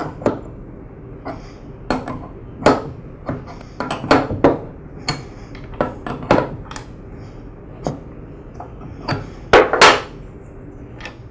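Metal clinks and knocks of an open-end wrench on the fittings as a thermal relief valve is threaded onto a pressure washer pump: scattered sharp clicks at irregular intervals, the loudest two close together near the end.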